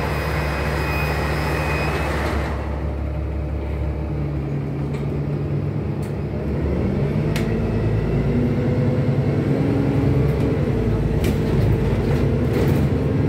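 NefAZ 5299 city bus heard from inside the passenger cabin: a steady engine rumble with road noise. A high whine and hiss drop away about two seconds in. From about four seconds on, the engine's pitch climbs in steps and grows louder as the bus gathers speed, with a few light rattles.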